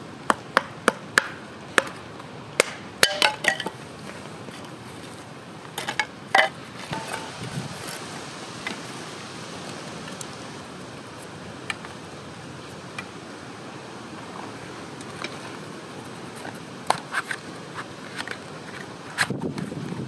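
A hatchet knocking into an upright stick of firewood to split kindling: a quick run of sharp wooden knocks in the first few seconds and a few more about six seconds in. Later, split sticks clack lightly as they are laid in a metal fire pit.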